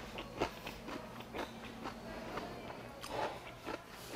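Close-miked chewing of a mouthful of food: irregular wet clicks and smacks, about three a second.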